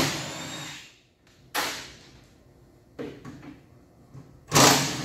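Power wrench run in four short bursts about a second and a half apart, loosening the Nissan Leaf battery pack's mounting bolts. Each burst starts sharply and fades within about a second, and the first and last are the loudest.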